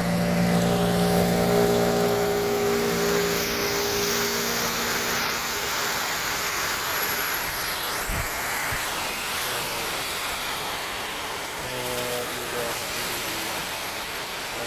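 Very heavy rain and water spray with a car driving through it on a flooded road, a loud steady rushing. A steady hum sounds over it for the first few seconds.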